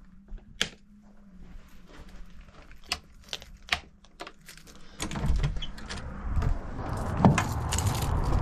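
Scattered sharp clicks and knocks of something being handled, then from about five seconds in, loud wind rushing over the microphone, growing stronger.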